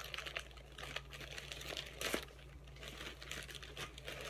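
Plastic packaging crinkling and rustling as it is handled and pulled open, with one sharper crackle about two seconds in.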